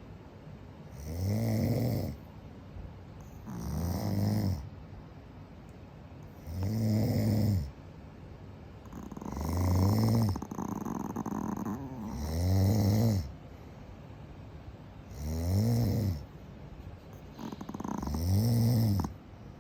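Yorkshire terrier snoring in its sleep: seven loud snores, each about a second long, coming every two to three seconds.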